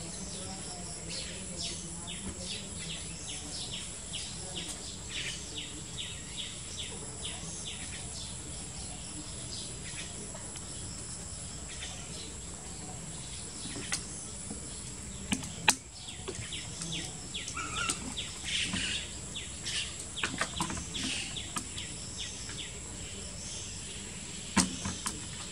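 Outdoor ambience: a steady high-pitched insect drone with many short chirps over it, and two sharp knocks, one about two-thirds of the way through and one near the end.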